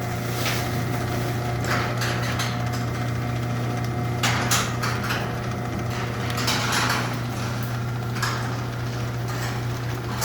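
Chamberlain-made garage door opener motor running steadily under a low hum as it drives the door through its automatic force-setting travel, with the door's sections and rollers rattling and clicking along the track. It cuts off abruptly at the very end.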